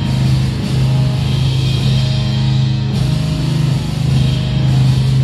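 Live heavy metal played loud: distorted guitars holding long, heavy low notes that change pitch only every second or two.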